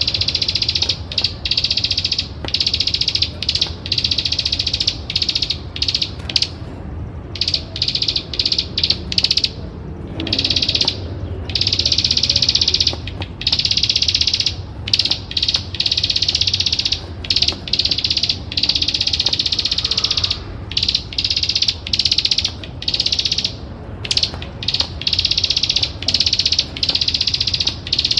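Plain prinia (ciblek sawah) giving its rapid clicking, rattling trill over and over, in runs of one to several seconds with short breaks between them. A steady low rumble runs underneath.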